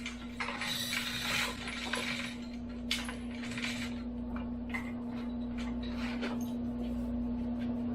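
Metal clicks, knocks and rattles from the Bridgeport milling machine's removed motor and head assembly being handled, over a steady electric hum.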